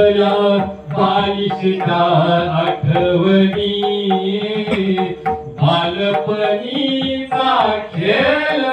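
A voice chanting wedding verses in a steady melodic recitation, holding notes and moving between them.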